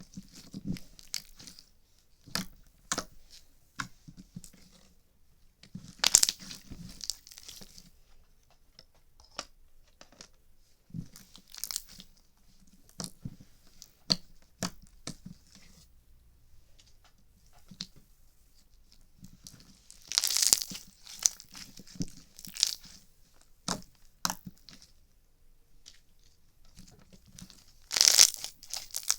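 Irregular sharp pops and clicks, some single and some run together into short crackling bursts, the loudest bursts about six seconds in, around twenty seconds in and near the end.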